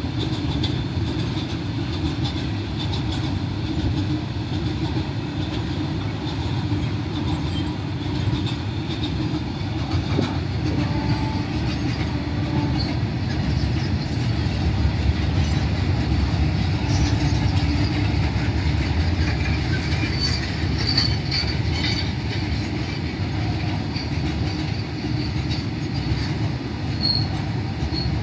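A freight train's open wagons rolling steadily past with a continuous rumble of wheels on rail, and brief high wheel squeals in the second half.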